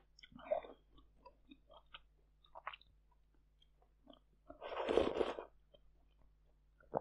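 Close-miked eating sounds of fermented sweet rice soup taken from a spoon: small wet lip smacks and chewing, with a loud slurp lasting about a second near the middle.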